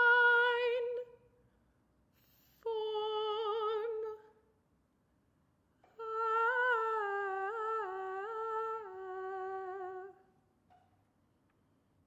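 Solo female voice holding long wordless notes with vibrato, in three phrases: a short one at the start, another a few seconds in, and a longer one that steps slowly downward in pitch before stopping near the end.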